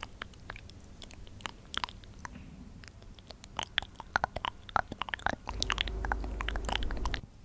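Close-miked ASMR trigger sounds: a dense run of crisp, irregular clicks and crackles, with a low rumble joining them from about five and a half seconds in until just before the end.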